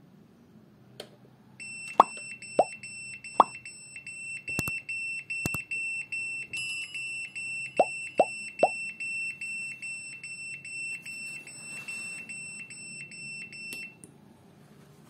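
Arduino rain alarm's small 5 V buzzer beeping in a high tone in quick pulses, sounding a rain alert after water is sprayed onto the rain sensor. Two runs of three sharp squirts from a hand spray bottle fall among the beeps. The beeping stops near the end when the silence push button is pressed.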